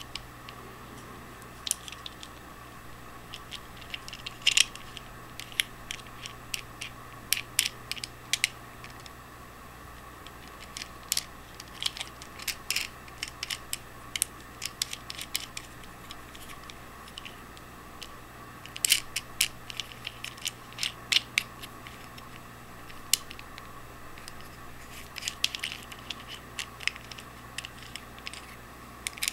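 Plastic suction-cup camera mount being handled: irregular sharp clicks and taps as its hinged arm, ball joint and knobs are turned, in scattered clusters over a steady background hum.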